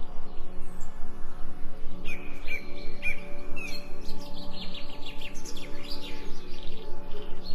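Birds chirping in short repeated calls, quickening into a rapid flurry about halfway through, over a steady low humming drone.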